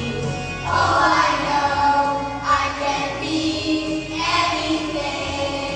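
A children's choir singing a song together, phrase after phrase.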